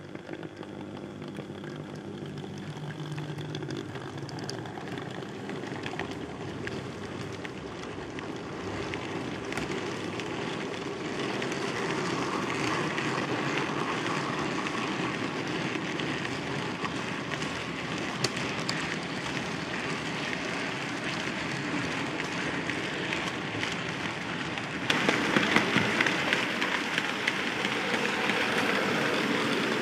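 Bachmann model 2-6-0 locomotive and goods wagons running on model railway track: a steady whirring rattle that grows louder, then steps up abruptly about five seconds before the end.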